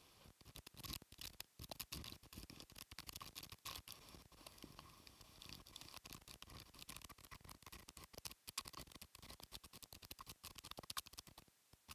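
Faint, irregular crackle of wind-driven rain and sea spray hitting the camera's microphone: a dense patter of small taps, with a brief lull near the end.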